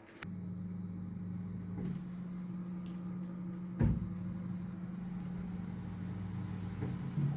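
iHunt 3 kg mini automatic washing machine's motor switching on and running with a steady low hum, with a single knock about four seconds in.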